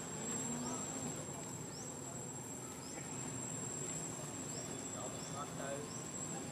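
Steady high-pitched drone of insects, with short rising chirps repeating about once a second.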